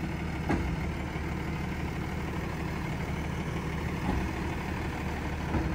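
Heavy delivery truck's diesel engine idling steadily, with a couple of faint knocks about half a second in and near the end.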